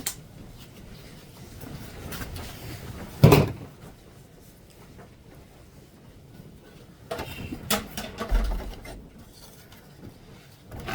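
Handling noises from working inside an inkjet printer: scattered clicks and knocks, with one loud knock about three seconds in and a few more around seven to eight seconds.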